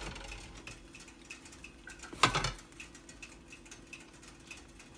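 A single loud clink of dishware against a glass serving tray about two seconds in, ringing briefly, among light ticks and rustles of hands folding a flatbread wrap, over a faint steady hum.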